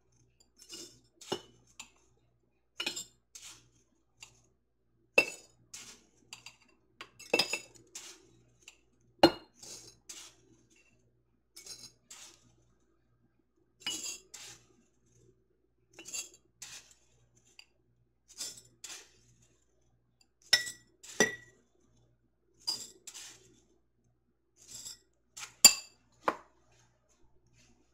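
Measuring spoon clinking against glass quart canning jars as dry rice is spooned in, two tablespoons per jar. Sharp clinks with a brief glassy ring come every second or two, often in pairs.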